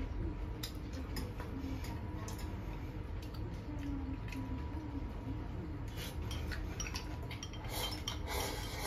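Chopsticks clicking and scraping against ceramic rice bowls and plates during a meal, in scattered light taps, with a slurp from the bowl near the end.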